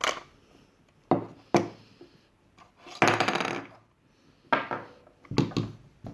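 Hard plastic knocks and clatter from handling a 3D-printed Nerf blaster and its shells, with a short rattling scrape in the middle.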